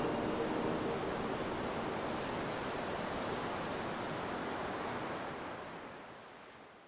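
Steady wash of sea waves, fading out over the last second or so. The last notes of the background music die away in the first second.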